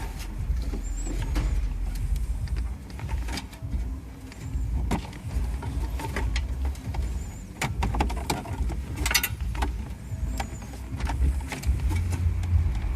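Scattered clicks and knocks of metal tabs and plastic dash parts being handled and bent while a car stereo's mounting cage is fitted, over a steady low rumble.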